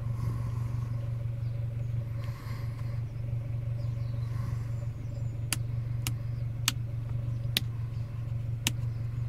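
Peugeot 406 engine idling, a steady low hum heard from inside the cabin. From about five and a half seconds in come five sharp clicks of small toggle switches being flicked on a gauge panel built into the sun visor.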